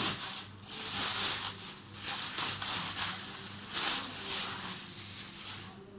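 Packaging rustling and scraping in irregular swishes as an aquarium LED light panel is pulled out of its wrapping.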